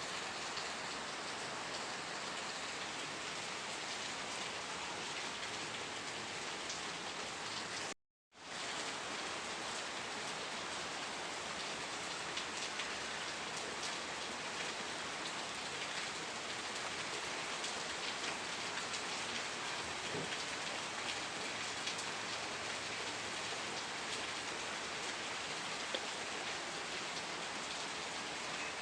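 Steady, dense rain falling, with fine drop ticks through the patter. About eight seconds in it cuts out completely for under a second and then resumes.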